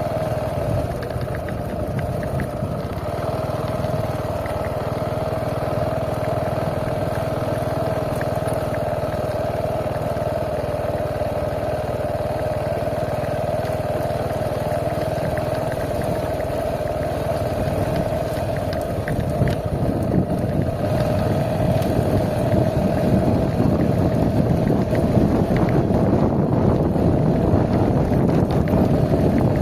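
An engine running steadily with an even hum. Wind rumble on the microphone grows louder in the second half.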